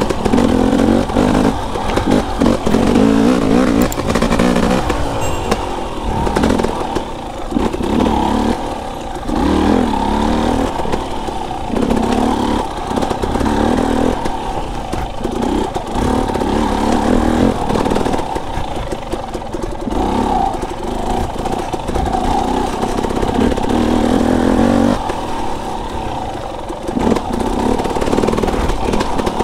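KTM enduro dirt bike engine ridden along single track, the revs rising and falling as the throttle is opened and closed every second or two, with some rattling from the bike.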